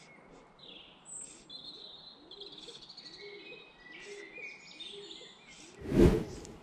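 Several songbirds chirping and trilling. A short, loud bump of noise comes about six seconds in.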